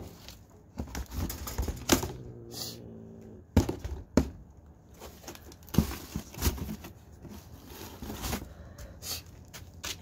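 Cardboard sheet being laid over a wire-mesh cage trap: scattered knocks and scrapes of cardboard against the wire, with crinkling as it is handled.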